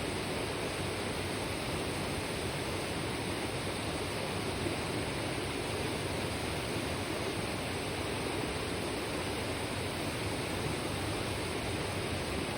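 Mountain river babbling steadily over rocks, a continuous even rush of flowing water.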